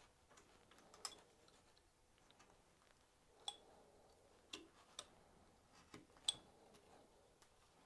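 Carving knife cutting into a willow staff: a handful of short, sharp, faint clicks and snicks as the blade bites the wood and slivers break off. The loudest comes about six seconds in.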